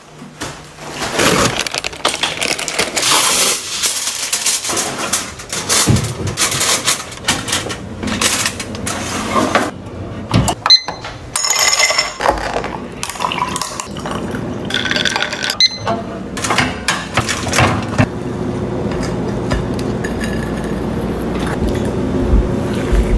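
Kitchen handling sounds: a run of sharp clicks, knocks and rustles as groceries and a cloth tote bag are handled on a counter. Near the middle, a glass mason jar clinks and rings briefly.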